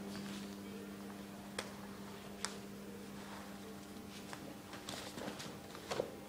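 A few sharp slaps and taps of arms and karate gi sleeves meeting in blocks and grabs during a partner drill, the loudest near the end, over a steady low hum.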